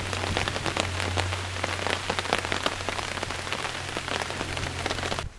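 Rain drumming on a tarp overhead: a dense, steady patter of drops, with a steady low hum underneath. The sound cuts off suddenly near the end.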